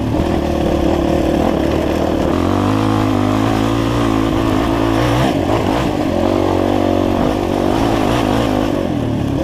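Enduro dirt bike engine running under load as it pulls up a steep, rough dirt climb, heard from the rider's own bike. The engine note steps up and down in pitch several times as the throttle is worked.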